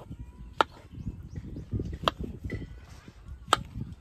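Kitchen knife cutting button mushrooms on a wooden cutting board: three sharp knocks of the blade against the board, about a second and a half apart.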